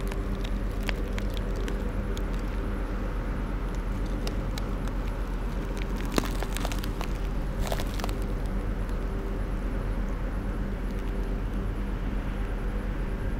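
A steady low machine hum, like an engine running, with scattered small clicks and crackles and a quick cluster of them about six to eight seconds in.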